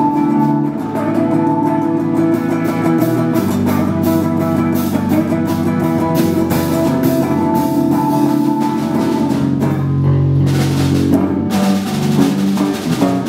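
A rock band playing: guitar with bass and a drum kit keeping a steady beat. The high end brightens, with more cymbal, for a while about ten seconds in.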